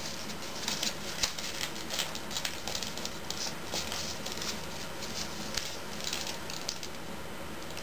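Origami paper rustling and crinkling in small irregular ticks as fingers fold and press its layers, over a steady hiss.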